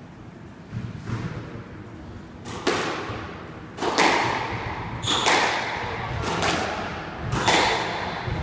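Squash rally: the ball cracking off rackets and the court walls, a sharp hit about every second with a ringing echo after each, starting about two and a half seconds in.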